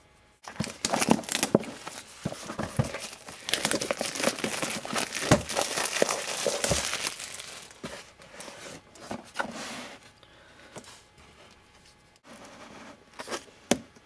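Cardboard retail box being opened by hand: packing tape tearing off, cardboard flaps and inner packaging rustling and crinkling, densest in the first half, then quieter handling with a few scattered knocks.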